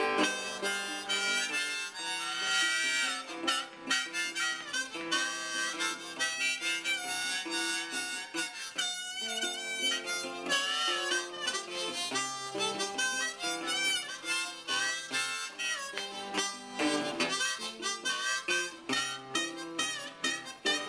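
Blues harmonica solo, a diatonic harp in a neck rack, wailing and bending notes over a picked resonator guitar that keeps a steady rhythm.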